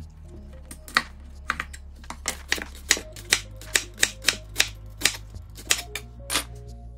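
Chef's knife chopping on a wooden cutting board, cutting through broccoli and then napa cabbage stalks: a run of sharp knocks, about two to three a second, a little quicker in the second half.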